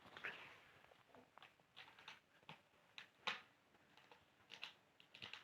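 Kittens moving about: faint, irregular small taps and rustles, with one sharper tap a little past three seconds in.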